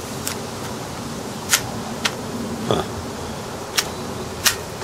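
A few sharp, separate clicks from a Tokyo Marui M&P9 gas blowback airsoft pistol being handled as its slide is tried with the manual safety engaged; the slide won't rack.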